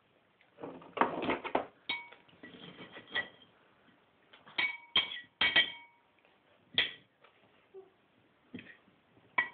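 A metal knife and fork clinking and scraping against a ceramic plate while cutting food. There are about eight sharp clinks spread unevenly, some leaving a short ring, with a denser stretch of scraping about a second in.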